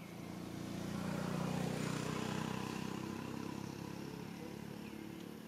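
A passing motor vehicle: a low engine hum that swells to a peak about two seconds in, then slowly fades away.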